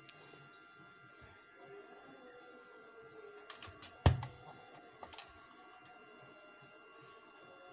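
Bangles clinking lightly on a wrist while cloth is handled, with a heavy thud about four seconds in as a clothes iron is set down on the fabric.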